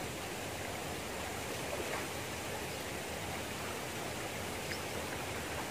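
Steady rush of water spilling over a small concrete weir, an even running-water noise.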